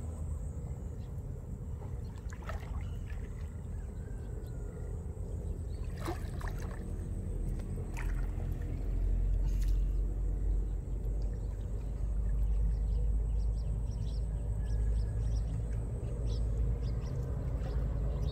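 A gill net being hauled by hand out of shallow pond water: light splashes and drips, with a few sharp clicks in the first half. Underneath is a low, steady rumble that grows louder about halfway through.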